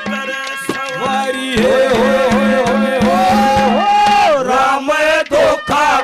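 A man sings a Haryanvi ragni through a microphone in long, wavering held notes over a steady low drone. A drum beats a quick, even rhythm from about a second and a half in to about four and a half seconds.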